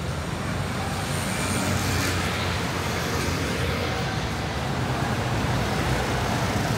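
Steady street ambience with traffic running: a constant low rumble under an even hiss, with no single event standing out.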